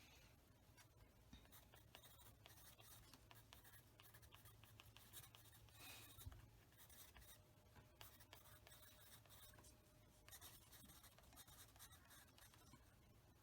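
Near silence with faint, scratchy strokes on paper, like an art tool working a sketchbook page, over a low room hum.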